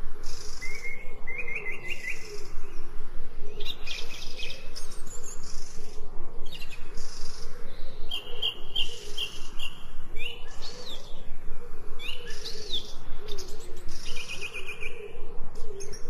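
Several songbirds chirping and singing: short rapid trills and quick rising and falling whistles, one after another, over a low steady wavering undertone.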